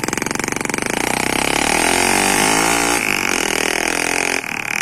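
Motorcycle tricycle's single-cylinder engine and exhaust pulling away under throttle: a loud, rapid exhaust beat that rises in pitch, shifts about three seconds in, and begins to fall away near the end.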